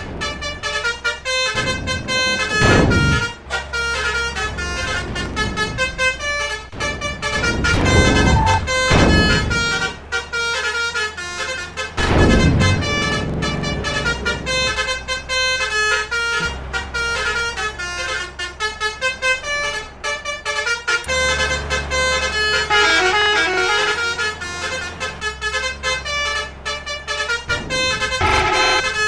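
Telolet musical multi-tone horns on buses and trucks in a convoy, playing quick repeating tune patterns of many short notes. Engine rumble comes in as vehicles pass close by several times.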